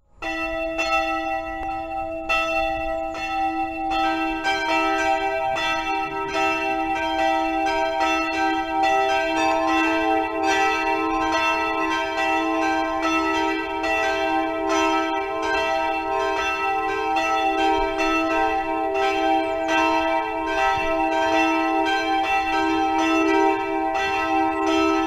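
Church bells ringing, struck again and again with long overlapping hum; a second bell joins about four seconds in.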